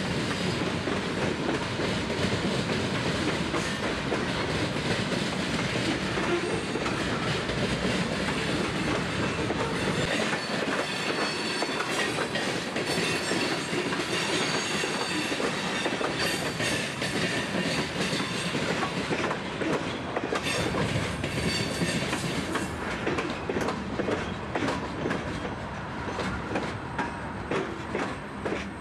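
Freight train of covered grain hopper cars rolling over a railroad diamond crossing, the wheels banging and clattering steadily across the crossing's rail gaps. Near the end the clatter thins into separate knocks and fades as the last car passes.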